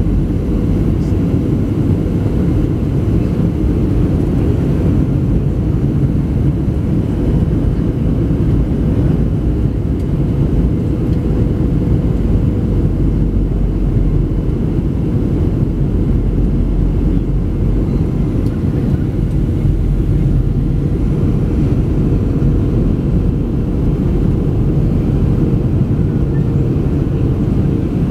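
Passenger aircraft cabin noise on approach for landing: a steady, loud low rumble of engines and airflow, with a constant hum running through it.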